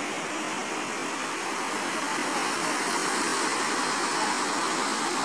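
Sea surf from waves breaking along the shore, a steady rushing noise that grows a little louder about two seconds in.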